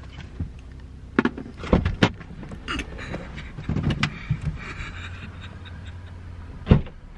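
Car doors being opened and shut: scattered knocks and clicks, with the loudest thump near the end, over a low steady hum.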